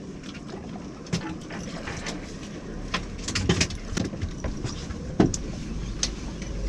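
Scattered sharp knocks and clicks of handling on a fishing boat's deck, over a steady low rumble and wind; the loudest knock comes about five seconds in.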